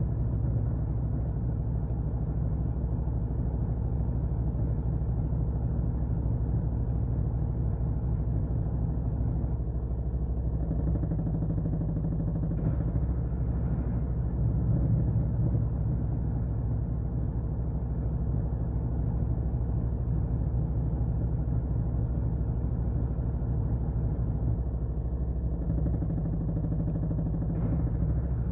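Washing machine running: a steady low motor hum and drum rumble, its tone shifting slightly about eleven seconds in and again near the end.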